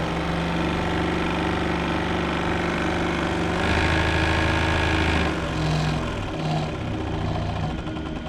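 Excalibur scroll saw running under foot-pedal control: a steady motor hum that shifts pitch and grows louder about four seconds in, then stops and is restarted in a few short spurts near the end.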